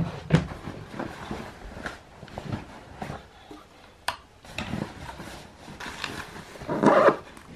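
Handling noise of a fabric backpack being packed by hand: rustling, crumpling and irregular soft knocks, with a louder rustle near the end.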